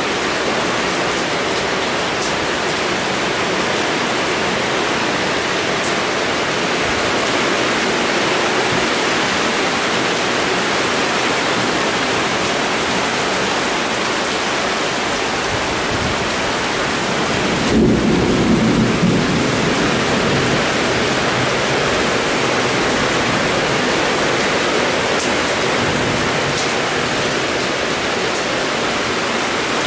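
Heavy rain pouring down steadily, with a short low rumble of thunder a little past the middle.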